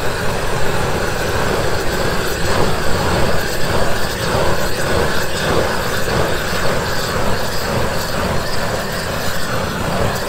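Hose-fed propane torch burning steadily as its flame heat-shrinks a bitumen-lined Postsaver sleeve onto a round wooden fence post. The steady flame noise cuts off suddenly at the end.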